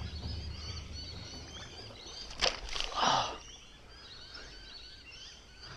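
Birds chirping steadily in outdoor wetland ambience, with two short, louder noises about half a second apart near the middle.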